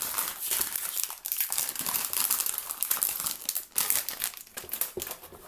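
Packaging crinkling and rustling as the box of a new speed cube is opened by hand: a dense run of small crackles that thins out near the end.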